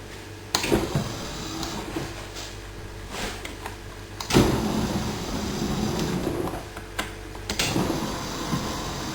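Electric drive motors of a remote-controlled lawn mower starting and stopping as it is driven about, with a sudden start about half a second in and a louder one about four seconds in.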